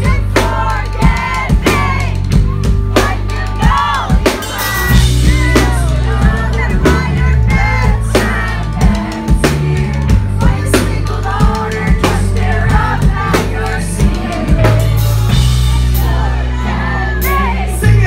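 Live pop-punk band playing a song: a drum kit keeps a steady beat of kick and snare under heavy bass, with a male voice singing over it.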